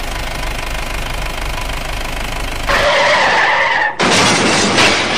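Added vehicle sound effects: a car engine running steadily, then a tyre screech about two and a half seconds in, and a loud crash about four seconds in as the toy pickup lands upside down in a pit.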